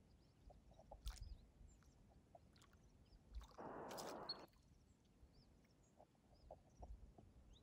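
Harris hawk bathing in shallow lake water, beating her wings in it: one splash lasting about a second, about three and a half seconds in. Faint high bird chirps around it.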